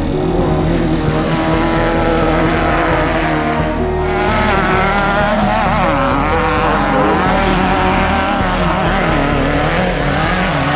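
Off-road race car engine running hard, its pitch rising and falling again and again as it revs up and down.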